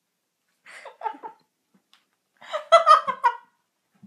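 A person giggling in two bouts: a short one under a second in and a louder, longer one about two and a half seconds in.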